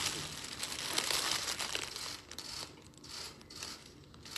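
Cellophane wrapping of a large flower bouquet crinkling as the bouquet is handed over and held, dense for about the first two seconds, then in shorter patches.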